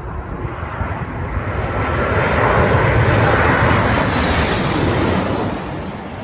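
Jet airliner on final approach passing low overhead: the engine noise swells, peaks for a few seconds and fades near the end, with a high whine that falls in pitch as it goes by.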